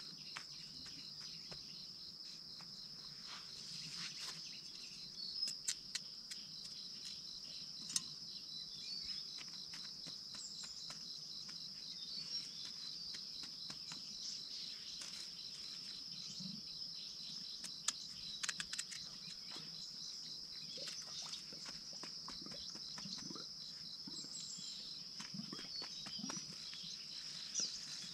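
A steady high trill of insects running throughout, with scattered soft clicks and rustles of potatoes being handled in wood ash and a plastic bag.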